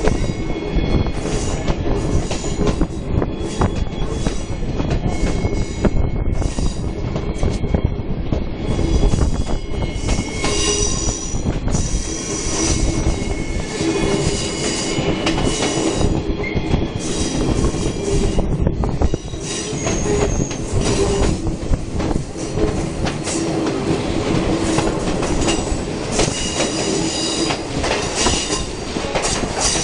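Passenger coaches of a steam-hauled train running through a curve, heard from an open coach window. The wheels squeal in high-pitched screeches that come and go over the steady rumble and clatter of the carriages on the rails.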